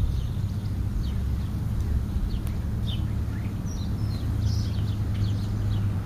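Birds giving short, high chirps here and there over a steady low rumble.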